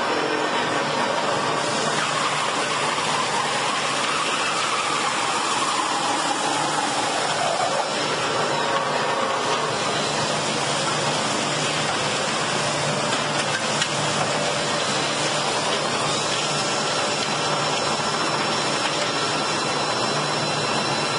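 Log-rounding lathe running steadily as its cutter head shaves bark and wood off a turning log: a continuous hissing machine noise with a faint whine that wavers in pitch in the first half.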